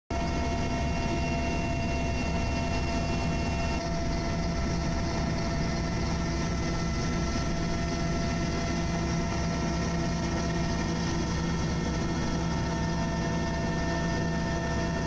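Helicopter engine and rotor running steadily, heard from inside the cabin: an even drone with several constant tones over it.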